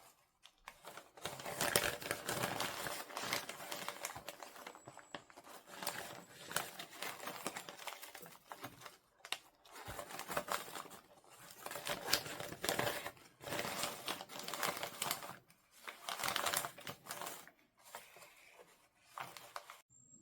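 Toy packaging crinkling and rustling by hand during an unboxing, in irregular bursts with brief pauses between them.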